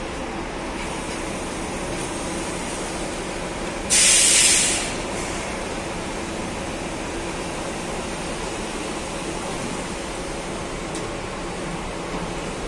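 Diesel engine of a large coach running as it moves slowly, with one loud burst of compressed-air hiss from the bus's air system about four seconds in, lasting about a second.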